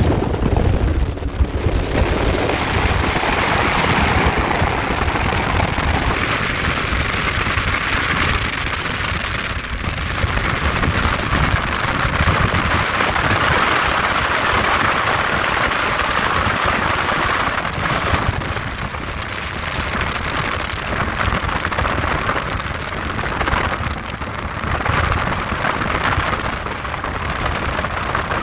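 Steady rush of wind over the microphone and hissing spray from a 43-foot Scarab AVS offshore powerboat running at speed, with a low rumble underneath.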